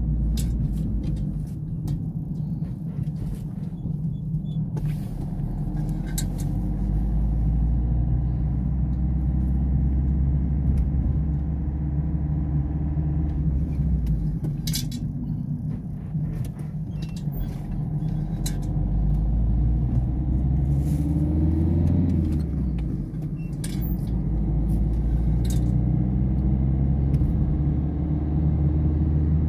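Car engine and tyre noise heard from inside the cabin while driving slowly in a low gear: a steady low rumble whose engine note rises and dips a few times as the speed changes.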